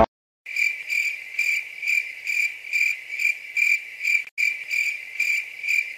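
Cricket chirping sound effect: one high chirp repeating steadily about twice a second over otherwise empty sound, with a brief cut about four seconds in. This is the 'crickets' gag for nothing happening.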